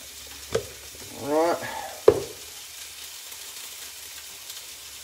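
Minced pork stir-frying in a frying pan, sizzling steadily, with two sharp knocks about half a second and two seconds in.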